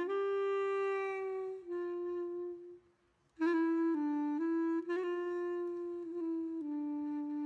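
Background music: a single wind-instrument melody of long held notes, stopping briefly about three seconds in before going on.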